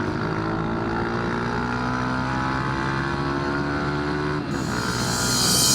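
Yamaha Factor 125's single-cylinder engine running through an aftermarket Roncar sport exhaust while riding, its note easing slowly lower. About four and a half seconds in the note changes and a loud hiss builds near the end.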